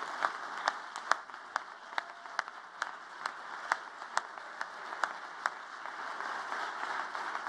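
Audience applauding steadily, with sharp claps about twice a second standing out above the rest.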